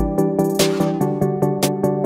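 Background electronic music with a steady beat and held synth chords.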